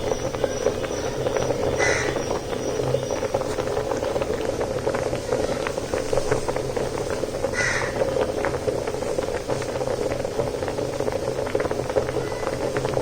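A pot of rice boiling, bubbling and popping steadily with many small crackles. A bird calls briefly twice in the background, about 2 seconds in and again near 8 seconds.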